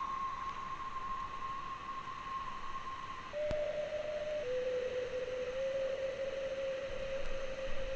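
A pure, steady tone held for about three seconds, then dropping to a lower held note with a small wobble, over a steady hiss.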